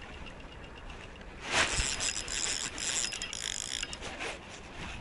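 Spinning reel being cranked: a bump about a second and a half in, then about two seconds of rapid clicking and gear whir from the reel that stops near the end.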